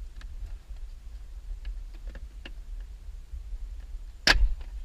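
Plastic windshield header trim panel of a Jeep Wrangler being worked loose by hand: scattered light plastic clicks and ticks, then one loud sharp snap about four seconds in as a retaining clip pops free.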